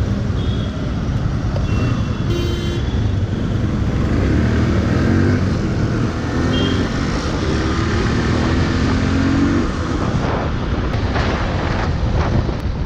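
Motorcycle engine running as the bike rides off, its pitch climbing several times as it pulls up through the gears.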